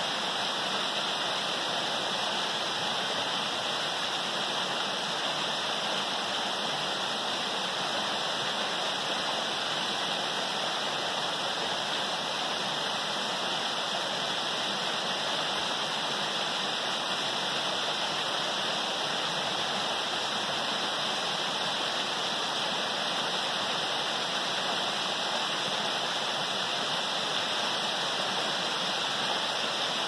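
Waterfall falling in two streams down a rock face into a shallow pool: a steady, unbroken rush of water.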